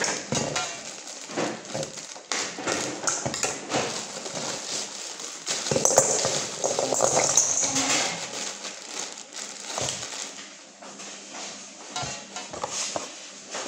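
Plastic bag crinkling while mussel shells clatter against each other and a stainless steel bowl as the mussels are tipped out of the bag, busiest about halfway through.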